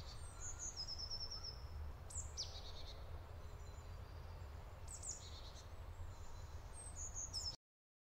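Small birds calling faintly: scattered short high chirps, a quick trill and a few falling notes, over a low steady rumble. The sound cuts off abruptly near the end.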